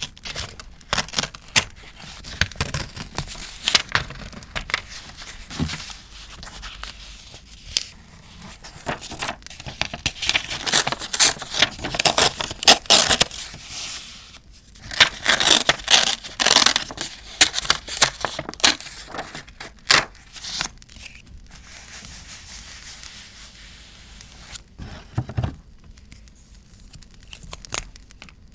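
Paper being handled close up for journaling: irregular crinkling, rustling and tearing, in bursts with quieter gaps, busiest in the middle.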